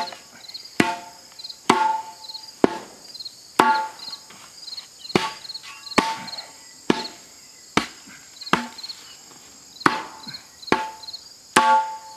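A series of hand-swung blows, roughly one a second with a short pause near the middle, each with a brief metallic ring, packing dirt tight around the base of a freshly set small tree. Crickets chirp steadily behind.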